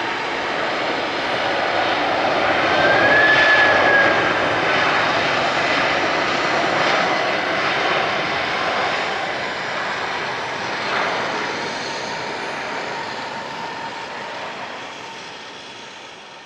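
Airbus A300 freighter's jet engines heard as the plane passes on its arrival, loudest about three to four seconds in with a brief high whine, then gradually fading away.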